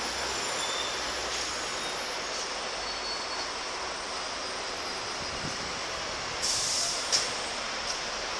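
Steady rush of road traffic heard from a pedestrian footbridge, with a short hiss about six and a half seconds in and a sharp click just after.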